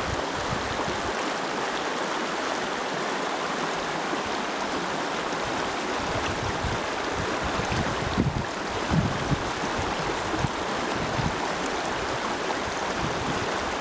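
A rippling river running, a steady wash of flowing water, with a few brief low bumps around eight to nine seconds in.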